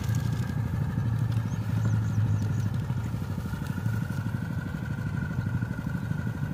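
Engine of a machine ploughing a rice paddy, running steadily and noisily: a fast low chugging with a constant whine above it.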